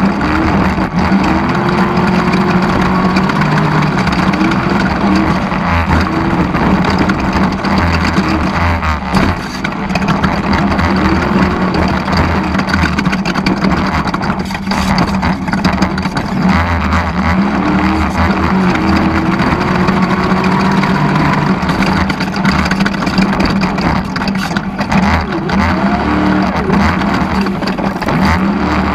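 Desert off-road race vehicle's engine running hard, its pitch repeatedly rising and dropping with throttle and gear changes, over a steady rushing noise.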